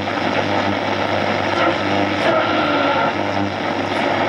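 A 1935 RCA Victor T6-1 tombstone radio giving AM broadcast-band static and hiss with a steady low hum as its dial is tuned between stations.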